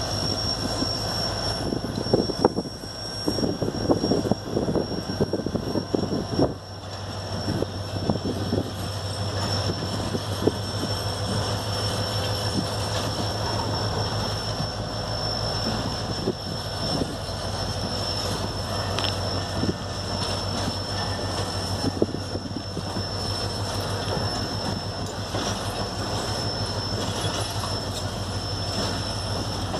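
Passenger coaches of a departing train rolling slowly past, their wheels clicking over the rail joints over a steady low rumble, with a thin high-pitched wheel squeal held throughout. The clicks come thickest in the first several seconds.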